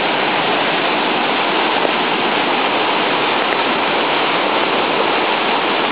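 Rain-swollen creek in flood, fast brown water churning through whitewater with a loud, steady rush.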